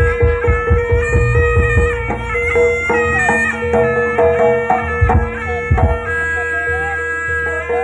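Javanese jaranan folk music: a reedy wind melody (the slompret shawm typical of this music) playing over a held steady tone, with drum strokes that come thickest at the start and again about five seconds in.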